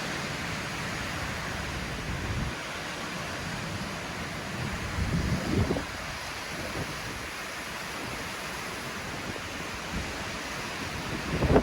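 Hurricane Ian's wind gusting, a steady rush with low buffeting on the microphone that swells briefly about two and a half seconds in and again around five seconds in.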